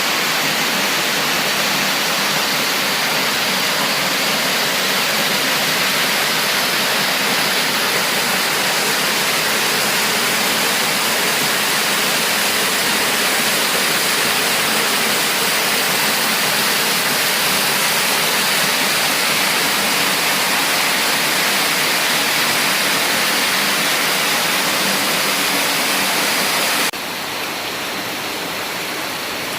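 Steady rush of a waterfall in a mountain gorge. Near the end it drops suddenly to a softer, thinner rush.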